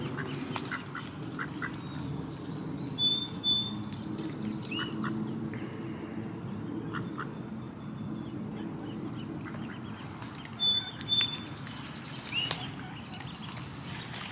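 Mallard ducks quacking while the adults squabble and chase one another among the ducklings. Short, high-pitched calls come in two bursts, about three seconds in and again near eleven seconds in.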